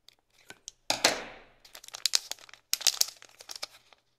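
Antistatic plastic bag crinkling as it is pulled open, with a loud sharp rip about a second in followed by a run of crackles.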